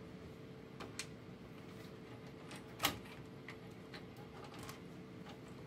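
Scattered light clicks and taps of plastic parts as the opened scanner unit of a Xerox WorkCentre 3335/3345 is taken apart by hand, with its scan carriage and drive belt being freed. One click about three seconds in is louder than the rest, over a faint steady hum.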